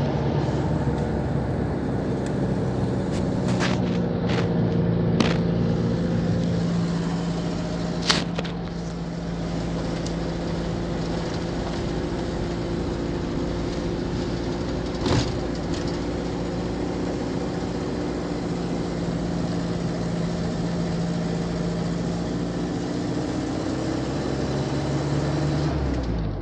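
Engine and road noise heard inside the cab of a moving vehicle: the engine runs at a steady note, with a few sharp knocks and rattles from the body over bumps, the clearest about 8 and 15 seconds in. The engine note drops near the end.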